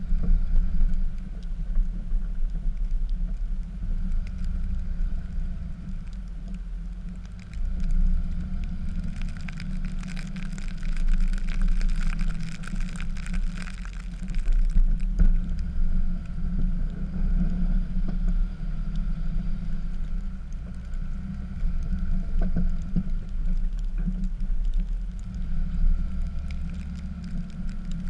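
Dodge pickup's Cummins inline-six turbo-diesel engine running steadily under load while plowing snow, with a stretch of louder hiss from about nine to fourteen seconds in.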